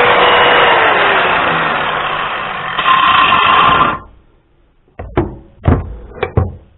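Power grinder grinding off a steel bolt shank: a loud, harsh grinding noise whose motor tone drops under load about a second in, stopping abruptly about four seconds in. A few sharp metal clanks follow.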